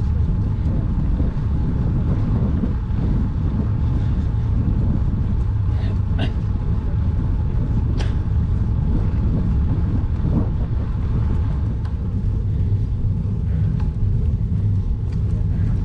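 Steady low wind and road rumble on a bike-mounted action camera's microphone while road cycling uphill, with a couple of brief clicks about six and eight seconds in.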